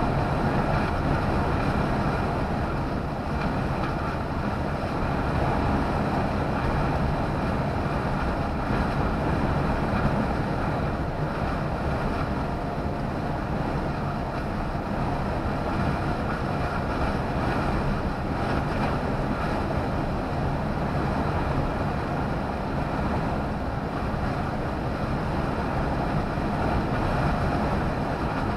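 Steady road and engine noise inside a lorry's cab at motorway cruising speed, an even mix of tyre noise and low engine drone that does not change.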